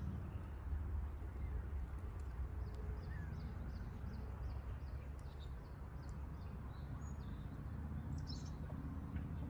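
A small bird's short, falling chirps repeated about three times a second for several seconds, then twice more near the end, over a steady low rumble.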